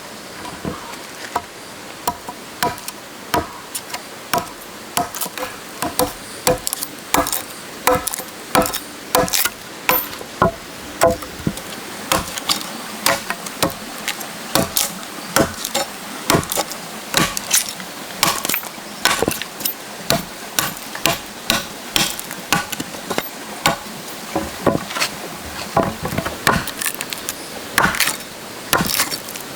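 Repeated blows of a tool on wood in the building of a wooden chicken coop, sharp knocks coming irregularly about twice a second, some of them ringing briefly.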